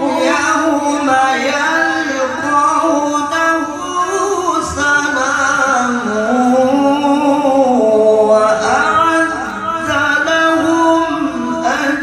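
A male qari reciting the Quran in the melodic tilawah style into a microphone, holding long ornamented notes. The melody sinks lower around the middle and climbs back up near the end.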